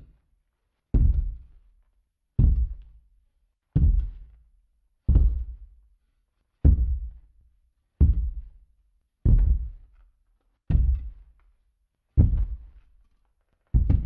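Slow, heavy footsteps, one about every one and a half seconds: each a deep thud that dies away slowly.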